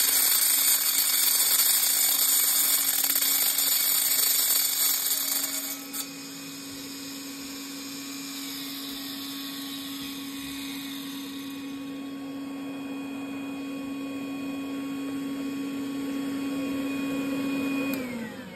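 Angle grinder with a segmented diamond blade cutting into ceramic wall tile for about six seconds, then spinning freely with a steady whine until it is switched off near the end and winds down in pitch.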